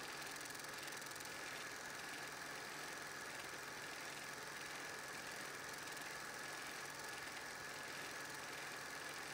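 8mm film projector running, a steady mechanical whirr with a constant high whine, a low hum and a faint regular pulsing from the film transport.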